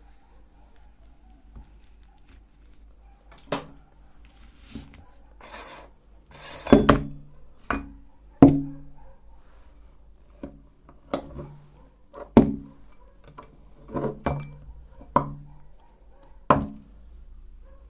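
About a dozen separate sharp metallic knocks and clinks, each followed by a short low ring, like hard kitchen metalware being set down or handled. There are two brief rustling scrapes about five and a half and seven seconds in.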